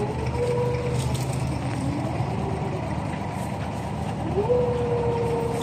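An abra water taxi's inboard diesel engine running steadily as the boat comes alongside the pontoon, its pitch dipping briefly and then rising and holding about four seconds in.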